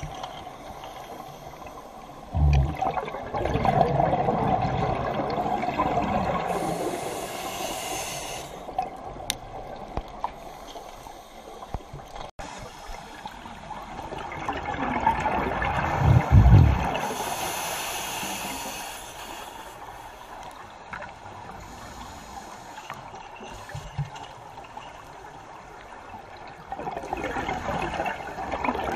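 Scuba diver breathing through an open-circuit regulator, heard underwater: a long burst of exhaled bubbles, then a shorter hiss of inhaled air, repeating slowly. Three exhales come about twelve seconds apart, with inhales after the first two.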